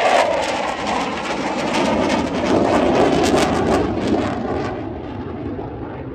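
Saab JAS 39 Gripen fighter jet's single jet engine, loud as the jet flies past with its sound sliding down in pitch, then fading from about four and a half seconds in as it draws away.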